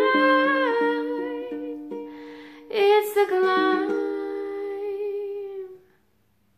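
A woman's voice holding long, gently bending sung notes over a fingerpicked ukulele. The ukulele stops about four seconds in, and the voice fades out about two seconds later as the song ends.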